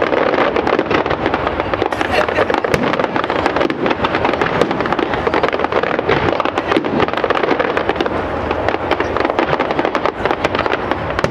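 A fireworks display: aerial shells and crackling stars going off in a dense, unbroken barrage of sharp bangs and crackles.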